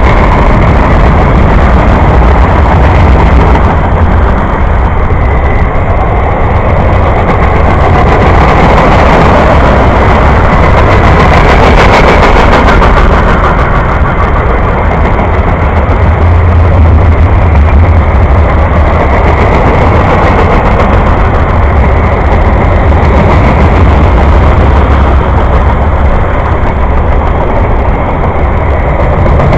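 Freight train of covered hoppers, gondolas and boxcars rolling past close by: a loud, steady rumble of steel wheels on the rails.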